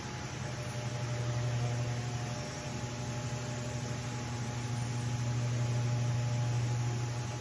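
Steady low mechanical hum with a few fainter steady higher tones, swelling and easing slightly, twice. It is an unusual noise that the uploader thinks may come from construction work nearby.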